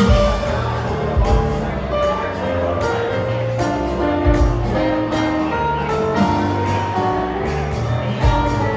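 Instrumental music with a melody of held notes and light percussion.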